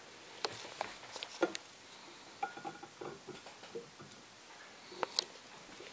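Scattered light clicks and taps against a glass of water as small hard pieces are handled in it, a few close together early on and two more near the end.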